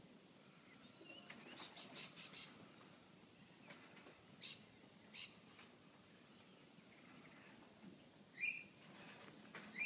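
Birds chirping faintly: short high chirps, a quick cluster about a second in, two single chirps midway, and two louder chirps near the end.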